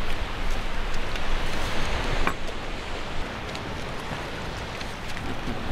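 Steady seaside noise of surf and wind, with a few faint clicks and a short rustle about halfway through as a handbag is opened and paper handled.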